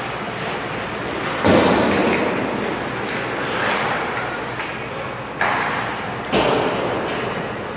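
Ice hockey play in an echoing arena: three sharp knocks ring out over the steady noise of the rink, the loudest about a second and a half in and two more near the end.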